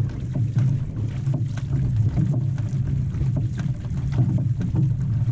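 Water rushing and splashing along the hull of a paddled outrigger canoe, with repeated paddle splashes and wind buffeting the microphone as a steady low rumble.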